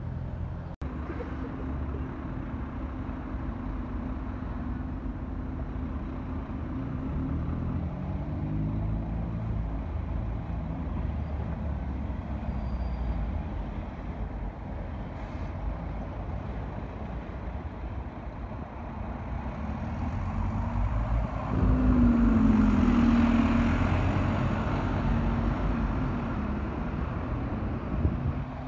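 Street traffic with buses and cars passing, diesel engines running and tyres on the road. A vehicle passes close about two thirds of the way through, the loudest moment, its engine note rising and falling.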